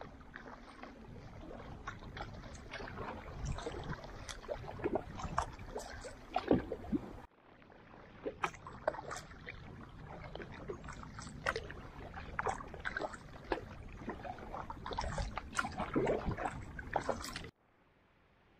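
Kayak paddle strokes: irregular splashes and drips as the blades dip and lift out of the water, over a steady wash of water along the hull. The sound cuts off abruptly twice, about seven seconds in and near the end.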